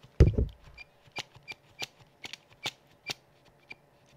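A thump as the keyboard is lifted, then the G-Lab Keyz Iridium's space bar pressed over and over, a click about every third of a second, with a slight squeak from the space bar's metal stabiliser bar.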